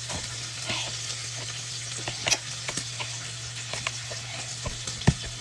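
Food sizzling in hot grease in a frying pan, a steady hiss with irregular sharp taps and clicks of a utensil, the loudest a little before the end. A steady low hum runs underneath.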